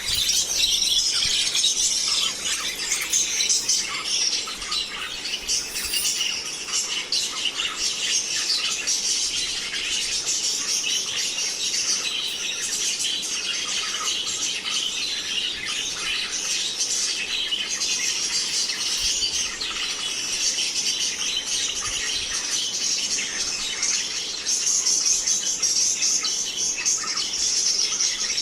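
Lovebirds chattering continuously, with many rapid, high-pitched calls overlapping one another.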